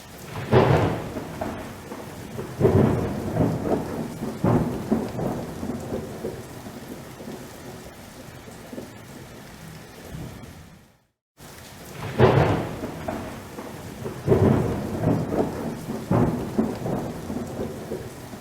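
Steady rain with thunder: loud claps rolling into rumbles just after the start and again about 2.5 and 4.5 seconds in. The sound cuts out briefly about 11 seconds in, and then the same run of thunder claps comes round again.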